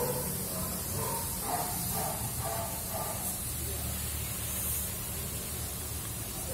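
Engine-driven generator set running steadily, a low rumble under a loud hiss.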